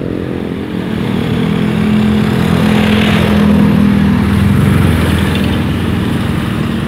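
Road traffic passing: motorcycles and a truck, an engine hum growing loudest about three to four seconds in as vehicles pass close, then easing.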